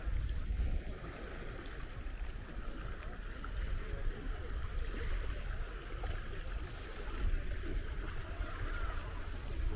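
Small waves washing on a sandy shore, with wind rumbling on the microphone.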